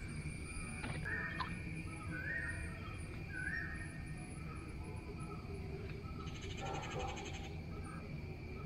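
Birds calling three times in short, even-pitched calls over a steady outdoor background, with a short fast rattle about six seconds in.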